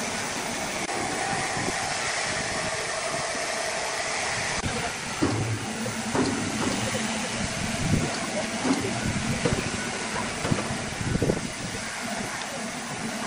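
Crane hoist running with a steady mechanical hum while it lowers a giant log on steel cables. It stops about four and a half seconds in, and scattered knocks and clanks follow.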